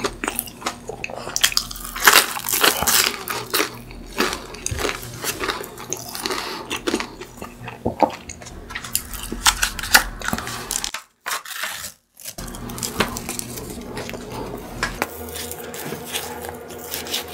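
Close-miked chewing of crisp, chewy croffles, with many sharp crackling crunches. A moment of silence just after the middle, then a metal spoon scraping and digging into a cup of chocolate ice cream near the end.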